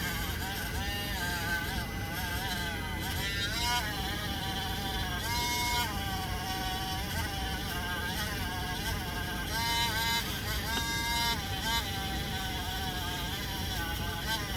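A small high-speed motor whining, its pitch dipping and recovering again and again as if it is being loaded and eased off.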